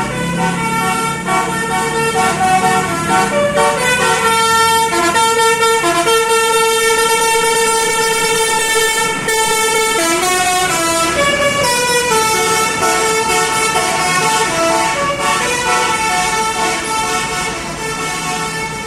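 Basuri telolet horn, a multi-tone musical bus horn, playing a melody of held notes that step from pitch to pitch, with one long note partway through and a slide in pitch about ten seconds in.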